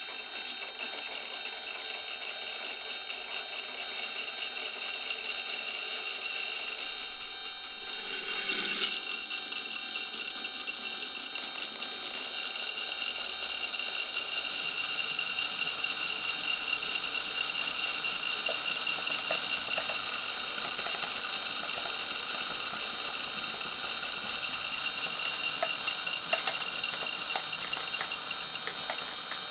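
Marbles rolling and rattling along a marble run's wooden and plastic tracks, with a louder clatter about eight seconds in and thicker clicking over the last few seconds.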